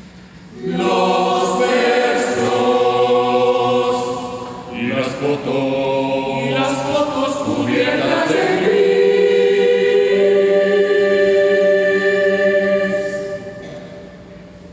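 Choir singing a cappella, all voices coming in together about a second in, with a brief dip near the middle and a long chord that fades away near the end.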